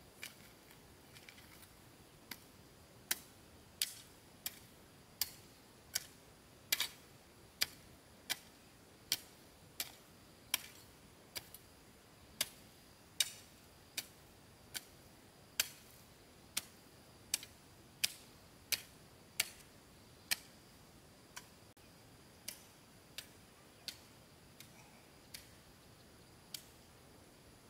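A hand tool striking again and again at an even pace, about three sharp strikes every two seconds, growing weaker over the last few seconds. A faint steady high tone runs underneath.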